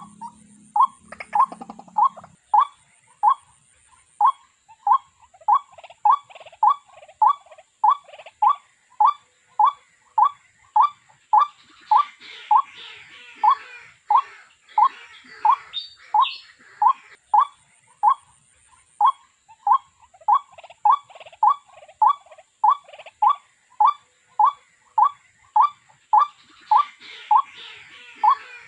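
Watercock calling: a steady, evenly spaced series of short, loud notes, nearly two a second.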